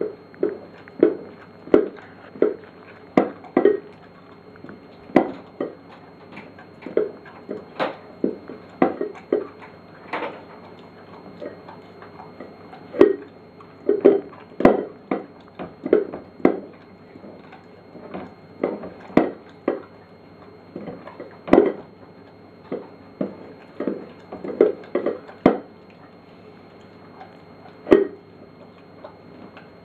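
Flat-coated retriever eating from a bowl on the floor: a run of irregular short knocks and clatters of the bowl, about one or two a second, as it chews and licks.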